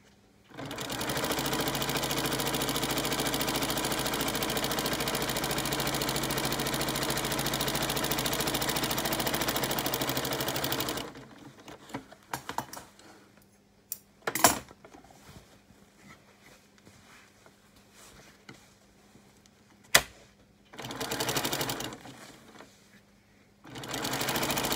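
Domestic sewing machine stitching steadily for about ten seconds as it quilts lines through a foam-padded quilt sandwich, then stopping. A few sharp clicks and fabric-handling noises follow, and the machine runs again in two short spells near the end.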